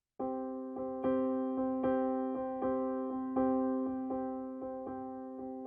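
Background music on an electric-piano-style keyboard: a gentle melody of evenly spaced notes, each fading after it is struck, over held tones. It starts just after the beginning.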